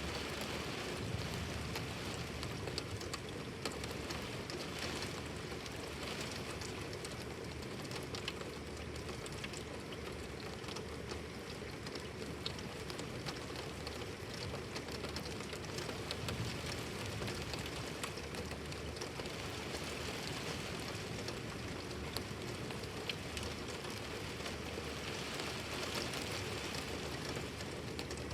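Heavy storm rain falling steadily: an even hiss with many scattered drops ticking.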